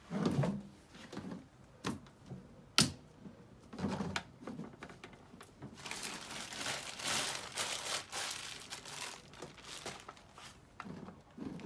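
Parts of a black metal wire-grid shelf being handled and fitted together: scattered knocks and clicks, the sharpest about three seconds in, with a stretch of rustling in the middle.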